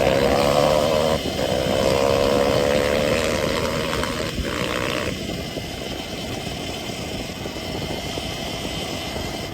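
Sur-Ron Ultra Bee electric dirt bike's motor whining under throttle, its pitch wavering, over a rushing noise. The whine drops away about five seconds in, leaving only the rushing noise.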